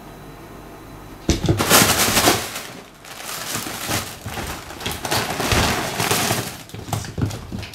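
Loud crinkly rustling and scrabbling from a fabric cat play tunnel and a balled-up eco bag as a cat dives into the tunnel and bats the bag about; it starts suddenly about a second in and goes on in uneven surges.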